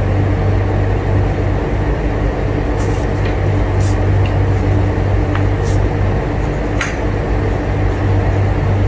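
Steady low room hum, with a few faint ticks and scratches from a pencil drawing on paper against a ruler.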